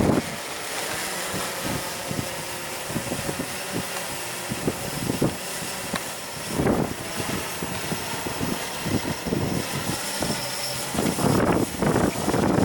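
Blade 350 QX quadcopter's motors and propellers humming steadily in flight, with gusts of wind buffeting the microphone, strongest about six and a half seconds in and again near the end.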